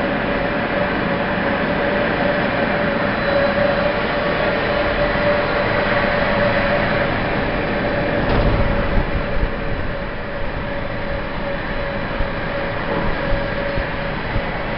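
Rope making machine running steadily: a dense mechanical noise with a steady hum-like tone through it, the machine producing rope. A brief low bump about halfway through.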